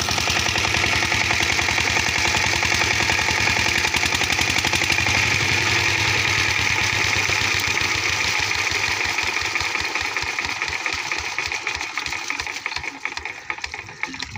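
Single-cylinder diesel engine of an 8 hp water pump set running at a steady, even beat, with water gushing from the outlet pipe. About ten seconds in it is shut down: the beats slow and spread apart and the sound fades as the engine winds down and the water flow dies away.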